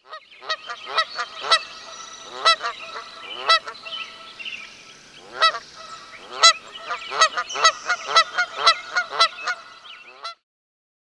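Many repeated short honking calls from several birds, overlapping one another, stopping abruptly near the end.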